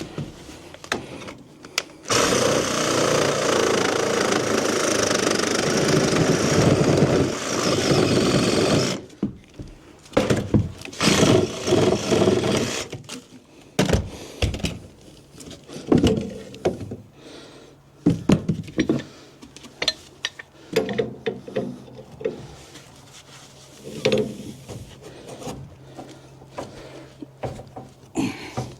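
Reciprocating saw (Sawzall) running and cutting for about seven seconds, starting about two seconds in. It is followed by scattered knocks and clatters of demolition work.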